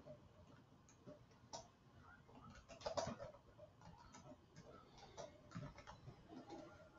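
Faint, irregular clicking of computer keyboard keys as a few words are typed.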